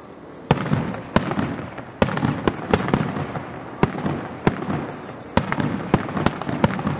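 Aerial fireworks shells bursting in quick, irregular succession, about a dozen sharp bangs with rumbling and crackle between them. They begin about half a second in.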